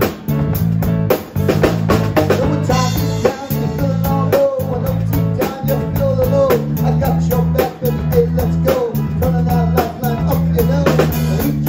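A live band playing: a male vocalist singing into a microphone over electric guitar, bass guitar and a drum kit keeping a steady beat.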